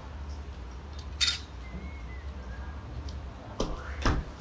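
Kitchen utensils and dishes clinking and knocking: a sharp click about a second in and two knocks near the end, over a steady low hum.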